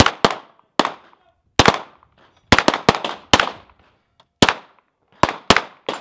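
Pistol shots on a range: about a dozen sharp cracks at uneven spacing, some in quick pairs, each with a short echo tail.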